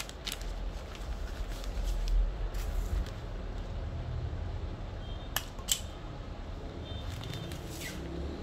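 Handling noise from a bouquet being worked by hand: rustling of plastic wrapping film and dull bumps as the wrapped bouquet is shifted, loudest about two seconds in, then two sharp clicks a little past halfway.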